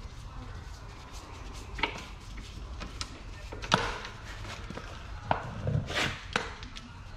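Irregular clicks and knocks of a gloved hand working on parts behind a car's front grille and bumper. The loudest knock comes a little under four seconds in, and a cluster of knocks follows a couple of seconds later.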